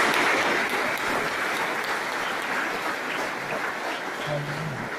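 Audience applauding, loudest at first and slowly thinning out. A voice speaks briefly near the end.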